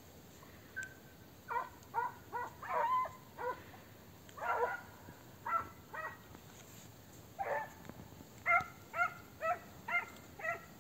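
Hunting dogs barking on a hare: about a dozen short, high-pitched barks, starting about a second and a half in and coming in bunches with short pauses.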